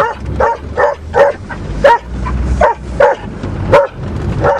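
A dog barking repeatedly, about nine loud, short barks at an uneven pace of roughly two a second. The car's engine and road noise run low underneath.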